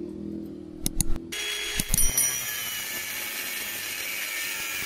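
A few sharp metal knocks as the clamp is set, then an angle grinder starts about a second in and runs steadily with a high whine, cutting steel.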